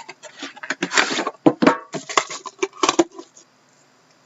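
Hands handling and opening a sealed trading-card box: a quick run of clicks, taps and rustles of cardboard and packaging that stops about three seconds in.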